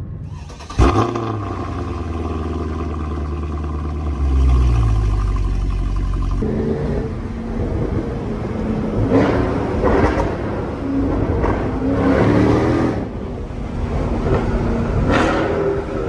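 Mercedes W204 C63 AMG's 6.2-litre M156 V8, heard from inside the cabin through an X-pipe in place of the secondary catalytic converters with the resonator deleted. It idles with a steady burble, then gets louder about four seconds in and pulls away, rising and falling as it accelerates.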